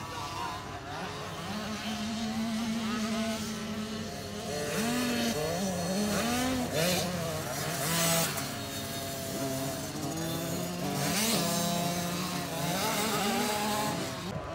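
Small youth dirt bike engine revving up and down, its pitch rising and falling again and again as the throttle is worked.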